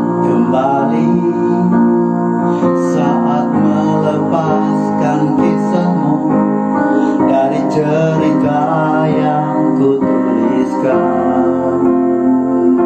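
Background music: a slow song led by piano.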